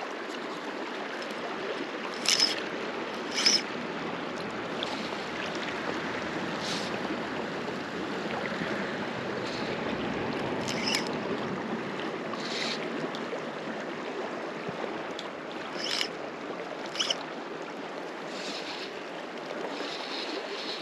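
River water rushing steadily past, a shallow fast-flowing trout stream. A few brief sharp clicks, the loudest about two seconds in and twice near the end of the first two thirds.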